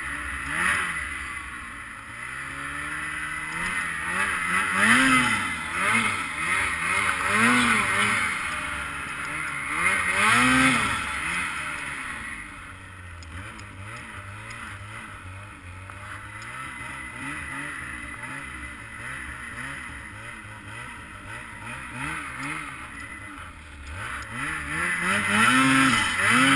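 2022 Ski-Doo Freeride 850 Turbo's two-stroke twin engine revving up and falling back in repeated throttle surges while riding through deep powder. It quietens for a long stretch in the middle, then revs up hard again near the end.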